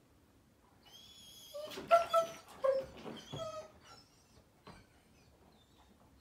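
German Shepherd puppy crying in her crate at bedtime: a high thin whine, then a burst of short, loud yelping cries about two seconds in that die away after a second or two.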